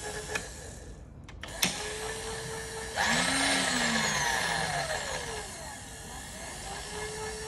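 Electric power feed motor on a Kondia FV-1 milling machine's table drive, whining steadily as it drives the table along its long axis, with sharp clicks as the feed lever is worked. About three seconds in it turns loud and speeds up sharply, its pitch climbing and then winding down over a couple of seconds, before it settles back into a steady feed.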